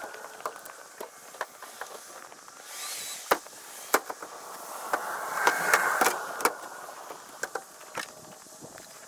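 Tucker Kitten snowcat being loaded onto a trailer, played at eight times speed. A rough mechanical noise swells twice, and sharp clanks and knocks come in quick succession.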